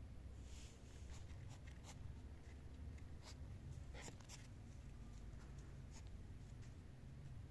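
Faint scratching and irregular light clicks over a steady low hum, with a busier cluster about a second in and another around four seconds in.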